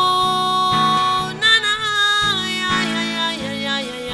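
A woman's singing voice holds a long sustained note without clear words, steps up to a higher note about a second and a half in, then falls to lower notes. Strummed acoustic guitar accompanies her throughout, in a worship song.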